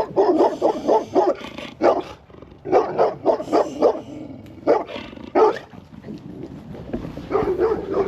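A dog barking repeatedly, in clusters of short barks with brief pauses between.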